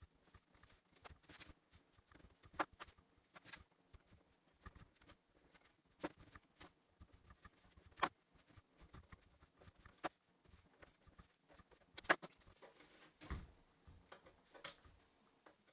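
Sparse, irregular small clicks and rustles of gasket paper being cut out by hand for a thermostat gasket, quiet overall, with a few sharper snaps about 2.5, 8 and 12 seconds in.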